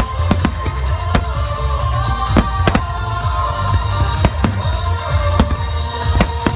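A rapid barrage of aerial firework shells bursting, with many sharp bangs in quick, irregular succession, over music.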